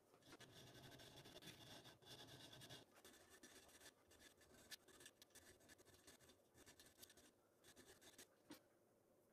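Faint scratchy rasping of a hand abrasive worked back and forth along the edges of thin aluminium strips clamped in a vise: a run of short strokes with a few brief pauses, stopping near the end.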